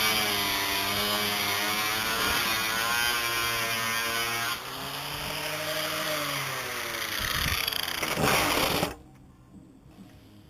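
7-inch circular saw running and cutting wood; the motor's whine drops in pitch as the blade loads into the cut and climbs back as it frees up, twice over. It stops abruptly about nine seconds in.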